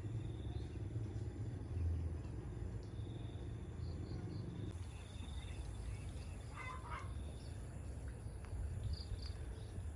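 Outdoor rural ambience: a steady low rumble with faint bird chirps, and a short run of bird calls about seven seconds in.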